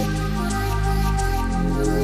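Background music: soft new-age style instrumental with held notes over a bass line and a light, even tick.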